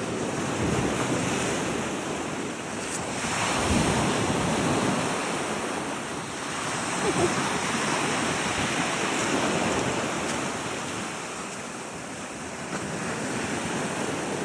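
Ocean waves breaking on a rocky shore with the incoming tide, the wash swelling and falling every few seconds.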